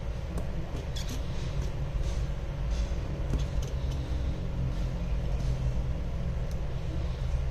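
Steady low rumble of background noise with a faint hum, over which come a few faint light clicks of small phone parts and a precision screwdriver being handled on a mat.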